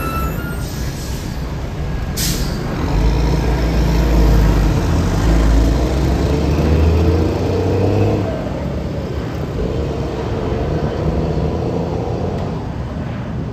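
Narrow-body twin-jet airliner passing low overhead, its engines a loud steady rumble that swells about three seconds in and eases after about eight seconds. A brief sharp noise about two seconds in.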